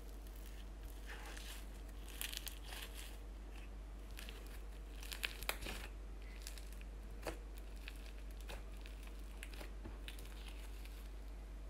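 Pink slime being kneaded and squished by hand as crumbly add-in pieces are mixed through, giving soft crinkly crackles and small pops, with louder bunches of pops about two seconds and five seconds in.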